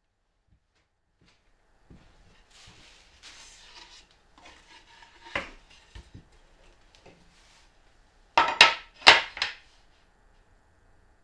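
Handling of plywood boards on a workbench: rubbing and scraping with a few light knocks, then two sharp clacks about half a second apart as a steel carpenter's square is set against the board's corner.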